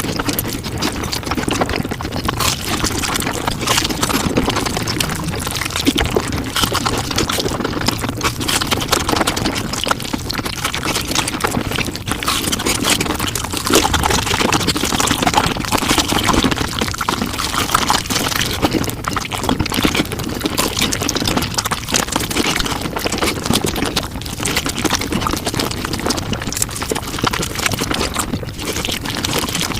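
Mukbang eating sounds sped up five times: a dense, unbroken run of chewing and mouth noises with rapid crackling clicks.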